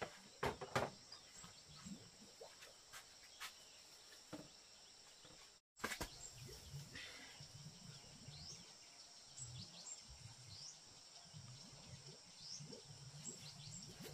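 Faint rural ambience: a steady high insect drone with short bird chirps, and scattered clicks and knocks, the loudest within the first second. The sound drops out for an instant a little before the halfway point.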